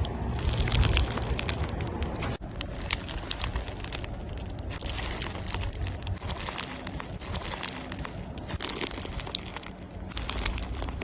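Dense, irregular clicking and crackling over a low rumble, with an abrupt cut about two seconds in.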